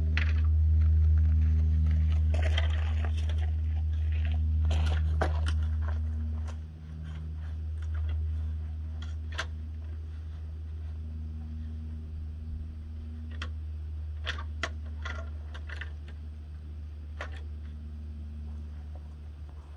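Scattered knocks and clatters of a wooden stepladder being handled and set up on grass, about a dozen in all, over a steady low hum that drops in level about seven seconds in.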